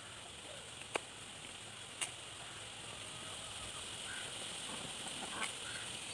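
Kitchen knife slicing onions on a small wooden cutting board, with three sharp taps of the blade on the board over a steady background hiss.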